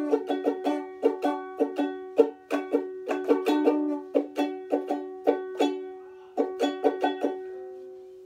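Ukulele strummed in a quick, even rhythm of chords, about four strums a second; the last chord is left to ring and fade near the end.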